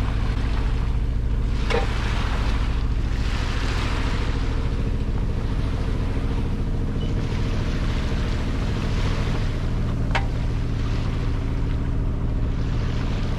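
Sailboat under way at sea: water rushing along the hull and wind buffeting the microphone over a steady low hum. Two brief clicks, about two seconds in and again about ten seconds in.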